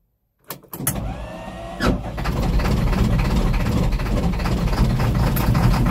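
Hino LB660A truck's diesel engine cold-starting after glow-plug preheat: the starter engages with a couple of clicks and cranks briefly with a rising whine, then the engine catches about two seconds in and settles into a steady, loud run.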